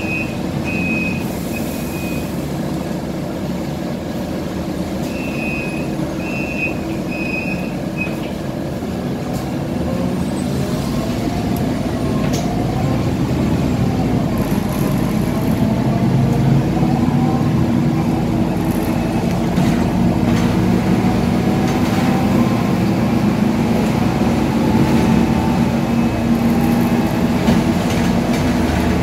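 Inside a Scania K320 articulated bus: two short runs of high electronic beeps, then the bus pulls away, its diesel engine and automatic gearbox rising in pitch and growing louder as it gathers speed, settling into a steady running drone.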